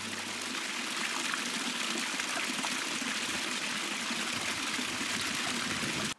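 A small stream splashing steadily down a little rock cascade, with water running into a plastic bottle held under the fall. Some music fades out at the start.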